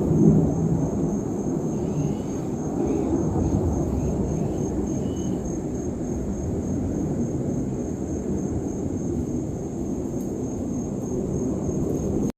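Steady low rumble of outdoor ambience, with a few faint high chirps about two to five seconds in.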